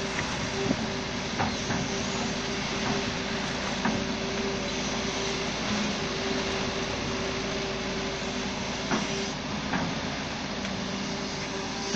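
Hitachi Zaxis hydraulic excavator's diesel engine running steadily under load with a constant hum and a few faint knocks, as the machine works to drive itself out of deep mud.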